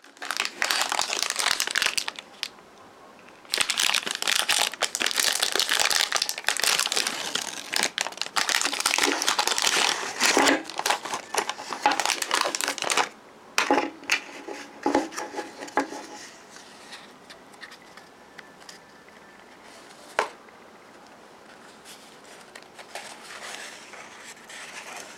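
Candy bar wrapper crinkling and tearing as a Hershey's Take 5 bar is unwrapped by hand. The crinkling is loud and dense for about the first thirteen seconds, then turns softer and patchier, with one sharp click near the end.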